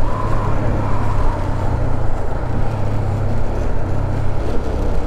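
Honda CB300R's single-cylinder engine running steadily at road speed, with a constant low drone under a rushing haze of wind and road noise.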